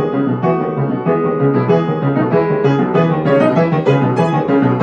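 Grand piano played fast, a dense stream of quick notes and chords with no pause.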